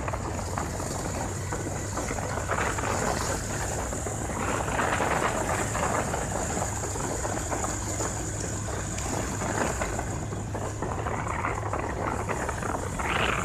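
Steady noise of a moving vehicle on a paved road: a low engine hum under the rush of tyres and wind, with a steady high hiss over it. The noise swells a little about five seconds in and again near the end.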